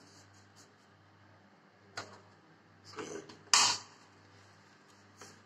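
Plastic handling noises as a refill bottle is pushed into a wall-mounted soap dispenser's housing: a sharp click about two seconds in, then a louder, longer rub of plastic about three and a half seconds in, and a small click near the end.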